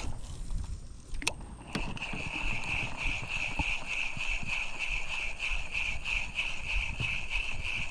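Fishing reel being wound in: a steady high whir, pulsing a few times a second, that starts after a couple of clicks about two seconds in, while a fish is reeled up on light tackle.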